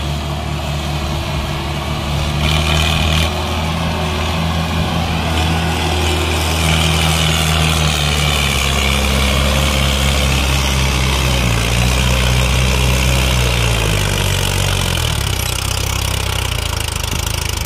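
Mahindra Arjun tractor's diesel engine pulling a fully loaded soil trolley up a ramp, running steadily under load; its note drops in pitch in steps near the end.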